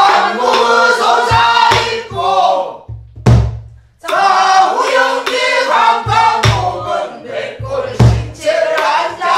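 A woman singing pansori in a strained, throaty voice, with wavering held notes, to her own accompaniment on a sori-buk barrel drum. The drum is struck at uneven intervals with a stick and the palm, and a loud stroke falls in a short break in the singing about three seconds in.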